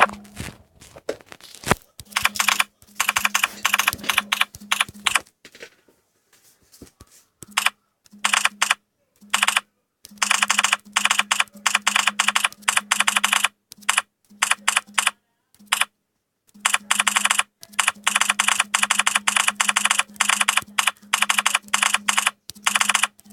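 Key-press click sounds from a smartphone keyboard app during fast typing. They come in quick runs of clicks lasting a second or a few seconds, broken by short pauses, with a longer lull about six seconds in.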